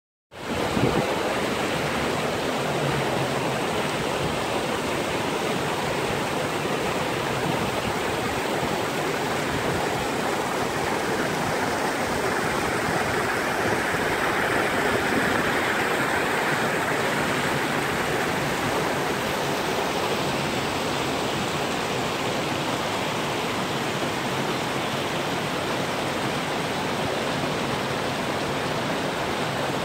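Mountain creek rushing over rocks and under fallen logs: a steady rush of water that swells a little louder about halfway through, where the white-water cascade is closest.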